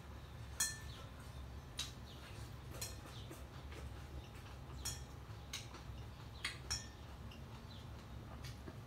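Chopsticks and a spoon clinking and scraping against a glass bowl as noodles and greens are tossed, a dozen or so irregular light clinks, a few ringing briefly. A steady low hum runs underneath.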